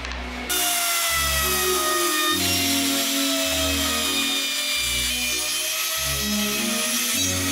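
A tool cutting or sanding wood starts about half a second in as a loud, harsh hiss, with faint whining tones that slowly fall in pitch. Background music with a steady, stepping bass line plays throughout.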